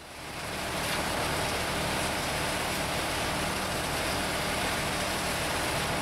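Tractor engine running steadily to drive the hydraulic motor of a Zagroda pan concrete mixer, with the hiss and grind of the chain-driven paddles churning concrete; it fades in over the first second.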